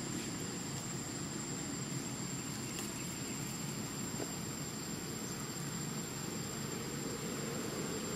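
Steady low rumbling background noise with a thin, steady high whine above it, unchanging throughout and with no distinct events.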